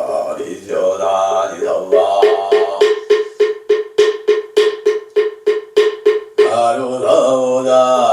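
Moktak (Buddhist wooden fish) struck in a fast, even roll of about four strokes a second, each stroke with the same hollow ringing note, between stretches of a man chanting a dharani. The roll stops suddenly and the chant resumes.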